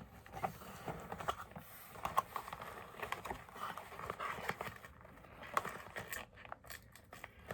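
Scattered soft clicks, taps and rustles of hands working a doll free from its box packaging: plastic and cardboard being handled and tape being pulled off the doll's dress.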